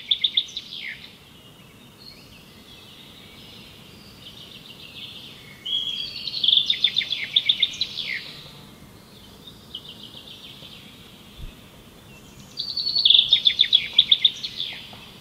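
A songbird singing repeated phrases of fast trilled notes, each ending in a downward slur, over a faint steady outdoor background. The song is loudest about six seconds in and again near the end, with softer phrases between.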